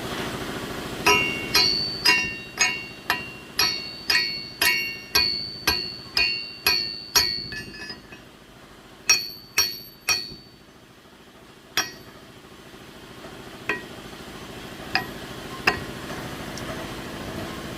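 Repeated sharp metal-on-metal strikes, each ringing briefly, about two a second at first and then sparser and fainter, as a seized connecting-rod bearing is knocked at on the crankshaft journal it has welded itself to through oil starvation.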